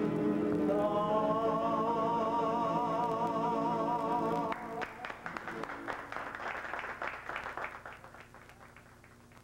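A man sings a long final note with vibrato over acoustic guitars, and the song cuts off about four and a half seconds in. A small group then claps, and the clapping dies away over the next few seconds.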